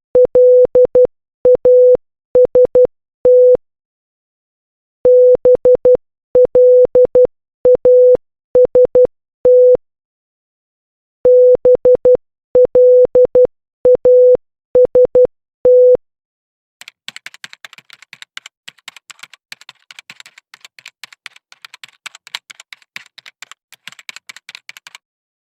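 Morse code played as beeps of one steady mid-pitched tone, dots and dashes in three runs with pauses between. About seventeen seconds in, the beeps give way to around eight seconds of rapid typing clicks.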